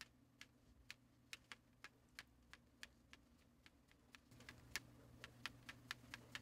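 Near silence, with faint sharp ticks about three a second over a low steady hum that grows slightly louder about four seconds in.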